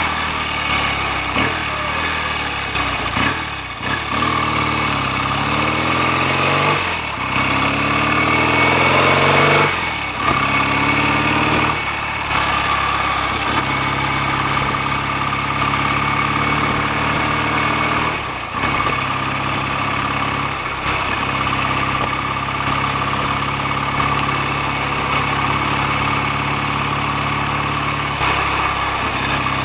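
BSA A65 650 cc parallel-twin engine under way, its pitch climbing twice in the first ten seconds with short breaks between, as it pulls up through the gears, then holding a steady note at cruising speed.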